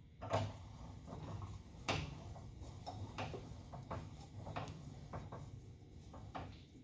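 Hand-cranked steel door band roller worked by hand, with irregular metal clicks and knocks as the flat steel band turns through the rollers. Two sharper knocks come about a third of a second in and near two seconds, then lighter ticks.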